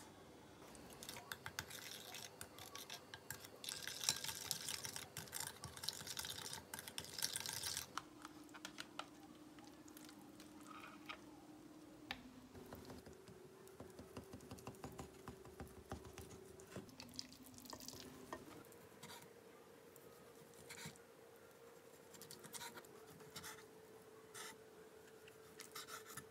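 A spoon stirring and scraping a wasabi-mayonnaise sauce in a glass bowl over the first several seconds. Near the end, a knife cuts raw salmon on a wooden cutting board in separate light taps.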